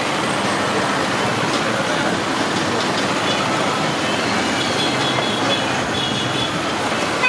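Motor-driven sugarcane juice crusher running steadily, its geared steel rollers grinding cane stalks as they are fed through to press out the juice.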